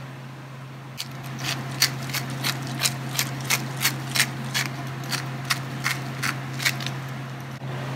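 Hand pepper mill being twisted to grind black pepper: a run of regular ratcheting clicks, about three a second, starting about a second in and lasting some six seconds.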